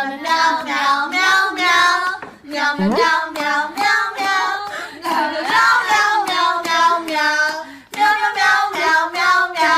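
A high-pitched voice singing a melody in short, quick notes with no clear words.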